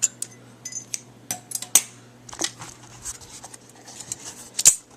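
Scissors cutting thin aluminium from a soda can: a series of irregular sharp snips and metallic crinkles. The loudest come about two seconds in and again just before the end.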